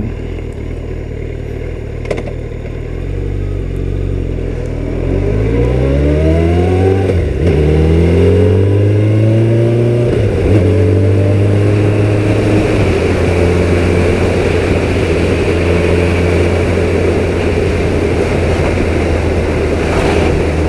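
Suzuki Hayabusa inline-four motorcycle engine idling at a stop, then pulling away. It revs up through the gears, shifting up about seven and about ten seconds in, and settles into a steady cruise with wind rushing past.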